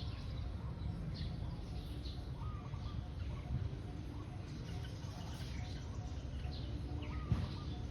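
Several birds chirping with many short, high calls, over a steady low rumble.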